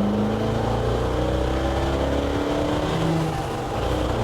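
A 383 stroker small-block V8 in a 1966 Chevy C10 pickup pulling under acceleration, its note rising steadily, with a brief easing about three and a half seconds in.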